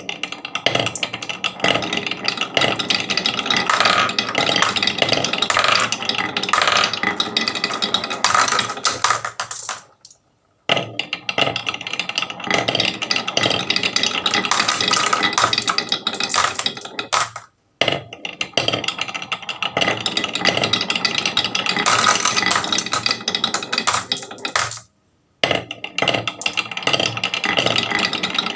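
Many marbles rolling and clattering down a wooden marble run, a dense rattle of small clicks. It stops briefly three times, about ten, seventeen and twenty-five seconds in.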